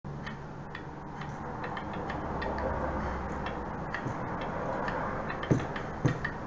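Steady ticking, about three ticks a second, over a low room hum, with two louder thumps near the end.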